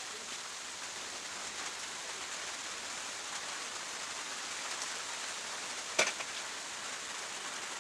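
Heavy rain falling steadily, with a single sharp click about six seconds in.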